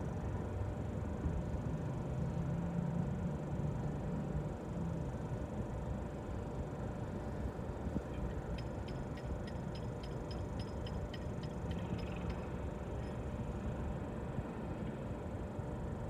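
Steady low hum of an idling car, heard from inside its cabin. Just past the middle comes a short run of light ticks, about four a second.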